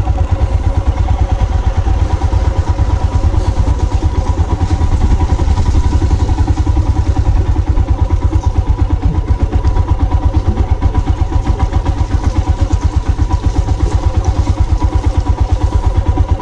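Royal Enfield Himalayan's 411 cc single-cylinder engine running at low revs, a steady, fast pulsing beat.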